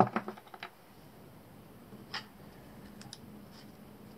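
A metal scope mount and its spacer ring set down on a tabletop: a quick clatter of clicks at the start, one more click about two seconds in, and a couple of light ticks shortly after.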